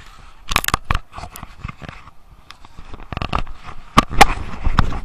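Handling noise from a gloved hand fumbling over the action camera and its microphone: irregular knocks, clicks and scrapes with rustling between, the loudest pair of knocks about four seconds in.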